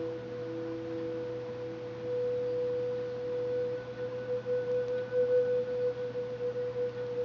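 Meditative background drone of sustained pure tones. One steady tone is held throughout, and a weaker lower tone fades out about halfway.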